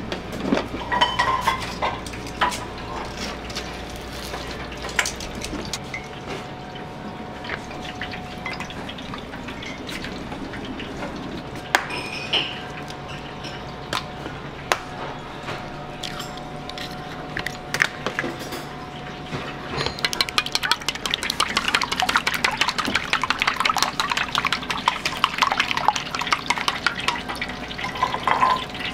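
Scattered clinks and knocks of dishes, pots and utensils, then, from about twenty seconds in, fast continuous clicking of chopsticks whisking beaten eggs in a stainless steel bowl.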